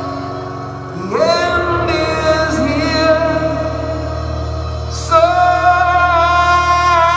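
Live rock band music: a male voice sings long held notes that slide up into a new note about a second in and again about five seconds in, over a steady low bass drone.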